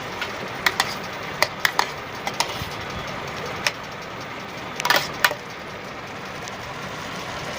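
Tomatoes frying in butter inside an electric kettle, a steady sizzle, with a spoon knocking and scraping against the kettle as they are stirred: a dozen or so sharp clinks over the first five seconds, then only the sizzle.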